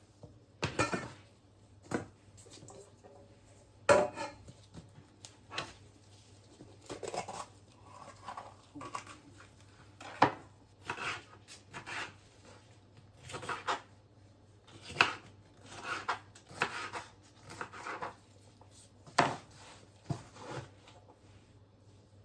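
Irregular knocks and clatter of kitchen utensils and dishes being handled, some with a short scrape, at uneven intervals, over a low steady hum.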